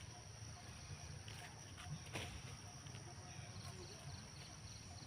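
Faint outdoor ambience: a steady high insect drone over a low hum, with a few soft clicks or rustles about two seconds in and short high chirps near the end.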